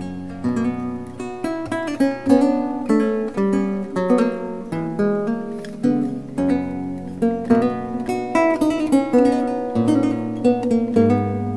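Background music on acoustic guitar: a steady run of plucked and strummed notes over a low bass line.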